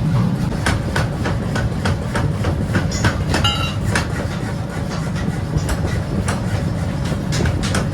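Workshop machinery running with a steady low rumble, under repeated sharp metal knocks, and one clang that rings on briefly about three and a half seconds in.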